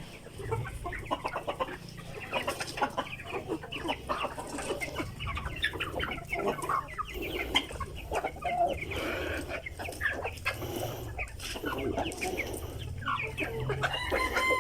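A flock of free-range Philippine native chickens (Manok Bisaya) clucking continuously, many short calls overlapping, with a longer call near the end.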